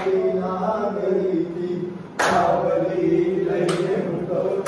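Men's voices singing a devotional Mataji garba song together in unison, with two sharp hand claps about a second and a half apart, the first about two seconds in.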